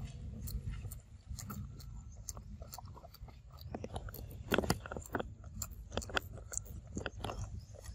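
A monkey biting and sucking at a small cardboard milk box held to its mouth: irregular crackles and clicks of the carton and chewing, denser and louder from about halfway through.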